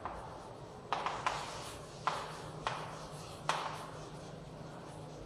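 Chalk writing on a chalkboard: about six sharp taps as the chalk meets the board, each trailed by a short scratch of the stroke, irregularly spaced over the first three and a half seconds.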